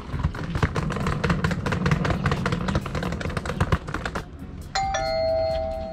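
A fast run of rustling clicks for about four seconds, then a two-note doorbell chime about five seconds in, the second note sounding just after the first and both ringing on and fading.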